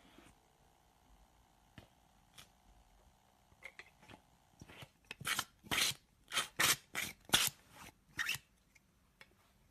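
Slime being squeezed and pressed by hand: a few soft clicks, then, about halfway in, a quick run of about eight crackly squishes.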